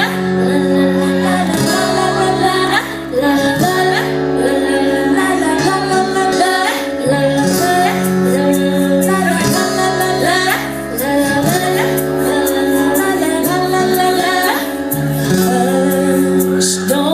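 Female vocal group singing a pop song live over an accompaniment of held chords that change every couple of seconds.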